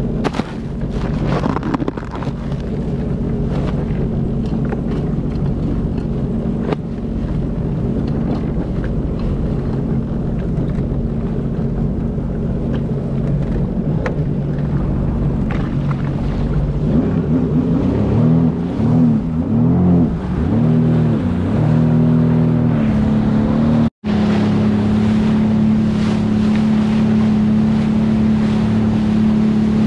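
Sea-Doo Fish Pro personal watercraft's engine running on open sea with wind on the microphone and water rushing. Its hum is steady at first, then rises and falls in pitch several times as the throttle is worked, and after a brief drop-out it holds a steady, higher pitch at cruising speed.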